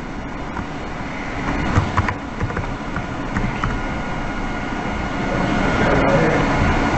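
Steady background rumble and hiss, growing slightly louder in the second half, with a few faint clicks.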